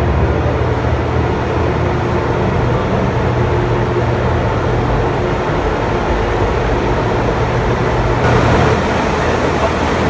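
Steady loud hum of hydroelectric turbine-generator units running in the dam's powerhouse, with a constant low tone under a wash of machine noise.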